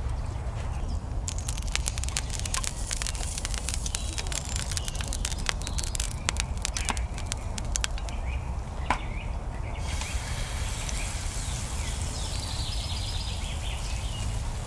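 Open wood fire crackling, with sharp pops from about a second in until about ten seconds, over a steady low rumble; a few faint bird chirps near the end.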